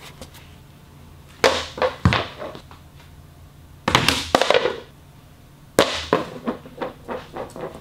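A thrown plastic disc golf putter landing and clattering: sharp knocks against the concrete floor and cardboard boxes about a second and a half in and again at two seconds, a longer scraping skid around four seconds, and another knock near six seconds followed by small rattles.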